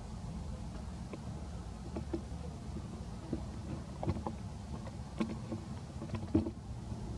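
Steady low background rumble with a few faint, irregularly spaced clicks.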